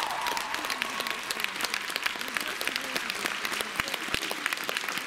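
Large arena audience applauding, a dense, even patter of many hands clapping, as the show music ends; the music's last held note fades out about a second in.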